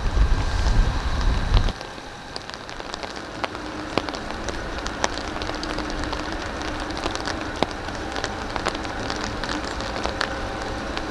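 Steady rain with many close raindrops ticking. A heavy low rumble cuts off abruptly about two seconds in. After that a faint low hum from an approaching train sits under the rain.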